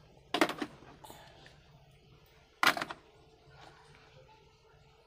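Two short knocks about two seconds apart, as muddy plastic toy vehicles are dropped into a bucket.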